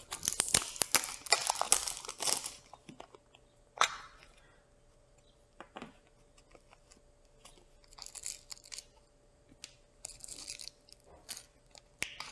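Clear plastic packaging being handled and opened: a small plastic case and wrapping crinkle and crackle densely for the first two and a half seconds, then a few single clicks and two short rustles follow.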